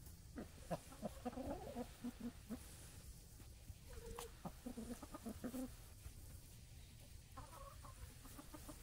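Chickens clucking softly: many short, low clucks scattered throughout from hens and a rooster feeding on grass.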